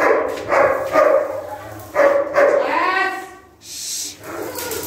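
A dog barks repeatedly, with a rising whine about two and a half seconds in. Near the end there is a crackling hiss from arc welding on steel cage bars.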